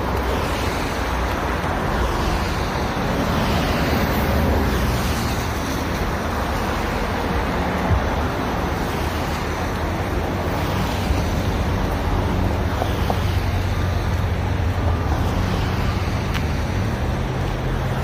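Steady rushing roar of passing road traffic, mixed with wind on the microphone, with a faint low engine hum underneath.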